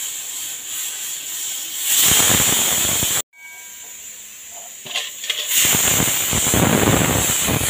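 Pressure cooker whistling, letting off steam as a loud, steady hiss. The hiss swells about two seconds in and breaks off suddenly a little after three seconds. It stays quieter for about two seconds, then comes back loud.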